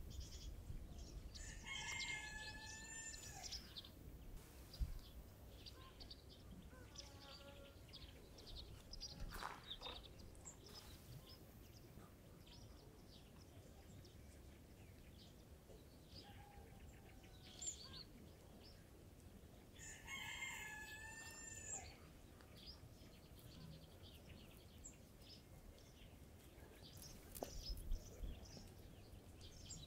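A rooster crowing twice, about two seconds in and again about twenty seconds in, with faint short chirps of small birds between.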